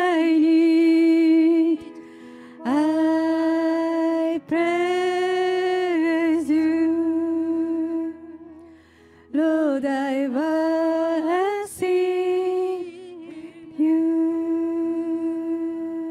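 Women's vocal group singing a slow worship song into microphones over a soft sustained keyboard, in long held phrases with short breaks between them.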